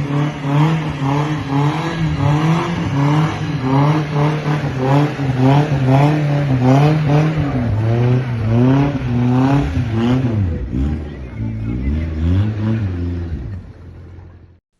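Car engine running at high revs, its whine wavering up and down, then fading away near the end.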